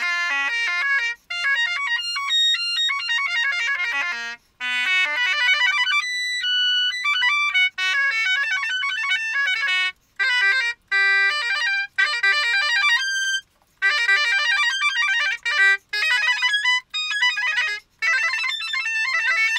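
Solo bassoon playing minor broken arpeggios: quick runs of slurred notes in short phrases, each broken off by a brief pause for breath.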